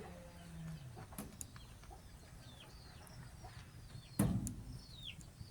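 Baby chicks peeping: short, high calls that slide downward, several in the second half. A single loud thump about four seconds in, and a low hum that fades out within the first second.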